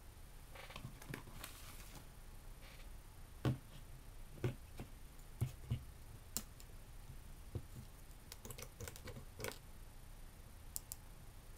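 Scattered light clicks and knocks of a plastic pump dispenser bottle and a fine brush being handled on a tabletop, the bottle's flip lid snapping open and the brush tapping in the pump top.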